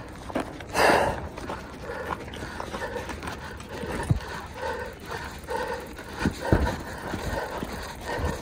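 Mountain bike rattling and knocking over rough ground, with scattered thuds and a loud rush of noise about a second in.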